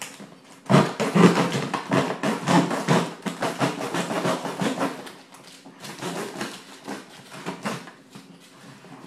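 Kitchen knife sawing and scraping through a tough corrugated cardboard box in quick rasping strokes, loudest for the first few seconds, then slower and weaker strokes toward the end.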